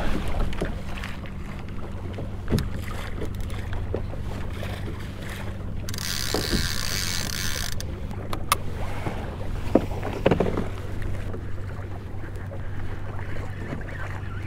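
Water sloshing against a fishing kayak's hull with wind on the microphone, over a steady low hum. Scattered sharp knocks come from gear on the hull, and a loud burst of hiss runs for about two seconds starting around six seconds in.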